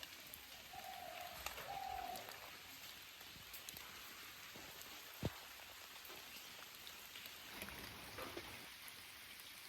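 Steady rain falling, a soft even hiss of drops. Two short faint tones come about a second in, and a single sharp tap about five seconds in.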